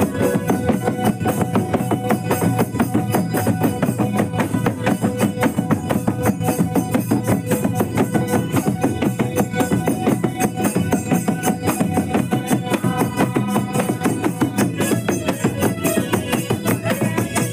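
Santhali dance music led by double-headed barrel drums (tumdak') beaten in a fast, even rhythm, with a jingling like a tambourine over the strokes.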